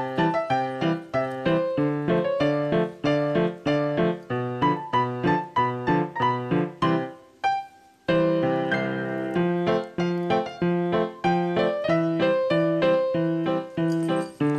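Background music: a bouncy keyboard tune of quick, evenly spaced notes. It fades out briefly a little past seven seconds in and starts again straight after.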